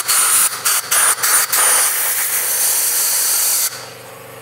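Compressed-air blow gun blowing out a brake caliper's piston bore to clear out dirt: several short hissing blasts, then a steady blast of about two seconds that cuts off sharply.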